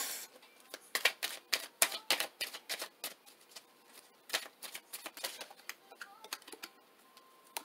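Tarot cards being shuffled and handled: a run of light, irregular card clicks and flicks, several a second, thinning out near the end.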